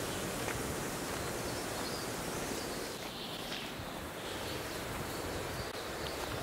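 Steady wind noise with rustling of grass and leaves, and a few faint bird chirps about three seconds in.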